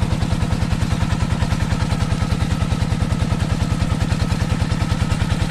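Kubota NS80 single-cylinder diesel engine driving an irrigation water pump, running at a steady speed with an even, rapid knock of about a dozen beats a second.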